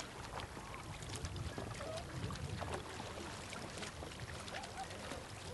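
Canoe paddles splashing in water: a quick, irregular patter of small splashes over a steady wash, with faint distant voices.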